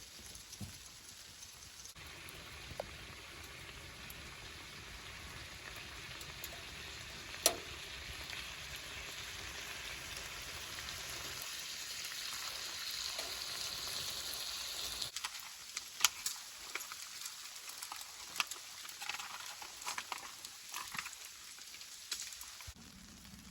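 Garlic and pork sizzling in a frying pan, the hiss building for several seconds and then cutting off suddenly, followed by a string of sharp clicks and taps.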